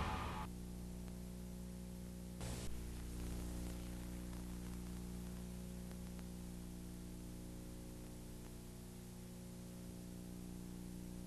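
The tail of music fades out in the first half second, leaving a faint, steady low electrical hum with light hiss. A short click comes about two and a half seconds in.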